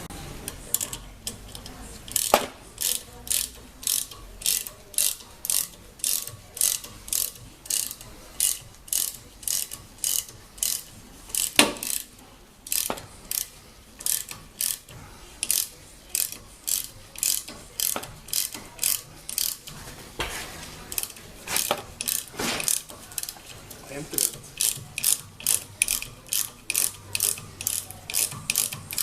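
Ratchet wrench clicking steadily, about two to three clicks a second, as it tightens a nut on a threaded-rod puller that draws a new rubber suspension bushing into its mount. A few louder clacks come in among the clicks.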